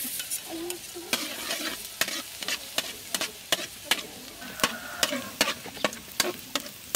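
Metal wok spatula scraping and clinking against a steel wok in irregular strokes, about two a second, over the steady sizzle of chopped ingredients frying in oil.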